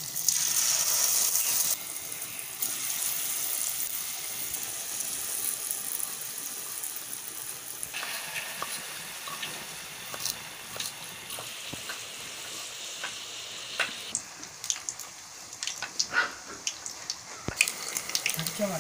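Masala-coated paneer deep-frying in hot oil: a loud hiss as the pieces go in, then a steady sizzle. Sharp clicks and pops come through in the last few seconds.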